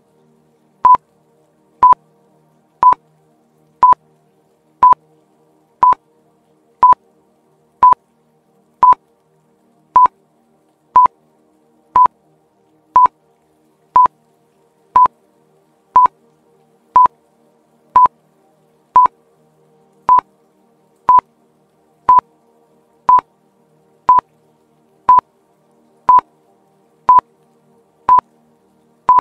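Quiz countdown timer beeping once a second, a short electronic beep at one steady pitch, about thirty in a row, over faint background music.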